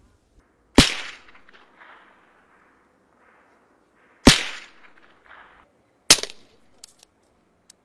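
Three silenced gunshots, soft sharp cracks each with a short tail, the first about a second in and the others a few seconds apart, followed by a couple of faint clicks near the end.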